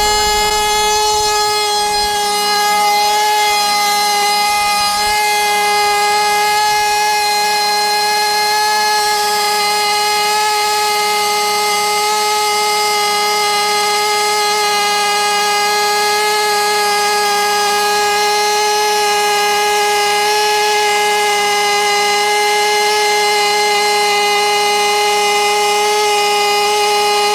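Soviet TsSTKAM 2.5 KR glow-plug model two-stroke engine with a single-blade propeller and tuned resonance pipe, running flat out on a test stand: a loud, steady, high-pitched note. It is working on the resonance pipe at about 22,000 to 25,000 rpm, close to its top speed.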